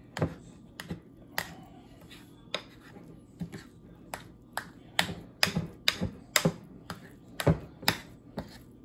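Spoon tapping and clinking against a bowl while stirring seasoning into mashed avocado: irregular sharp taps, coming faster in the second half at about two a second.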